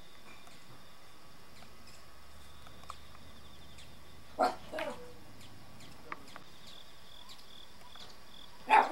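A dog barking: two short barks close together about halfway through, then a louder bark near the end, over faint steady background noise.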